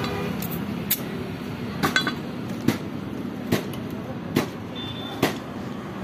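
Sharp metallic knocks, about one a second, some with a short ring, over a steady low hum.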